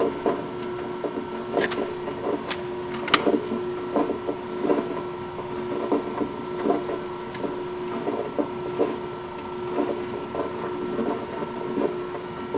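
Electric pasta extruder running as thin spaghetti is pushed out of the die: a steady motor hum with a regular knocking about twice a second.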